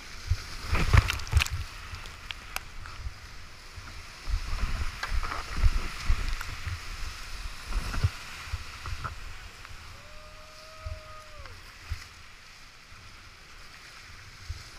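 Whitewater rapids rushing and splashing around a kayak, heard close on a helmet-mounted GoPro, with water hitting the camera in heavy low thumps that come in clusters about a second in and again from about four to eight seconds. A brief steady tone sounds about ten seconds in.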